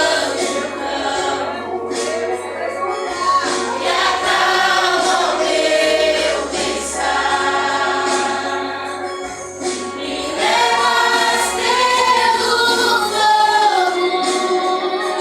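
A vocal group singing a Christian worship song together, over low held bass notes that change every second or so.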